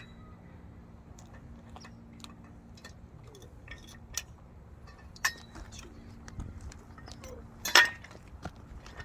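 Steel tubes of a pickleball net frame clinking and knocking together as they are handled and slotted into one another. The clinks are scattered and irregular, with the loudest one a little before the end.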